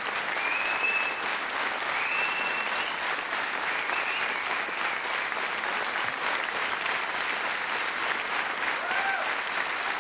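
Large theatre audience applauding steadily, with a few cheers and whoops rising above the clapping near the start and again near the end.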